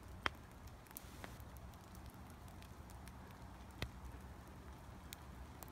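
Light rain in a forest: scattered single drips tapping close to the microphone at irregular intervals, the loudest about a third of a second in and another near four seconds, over a faint low rumble.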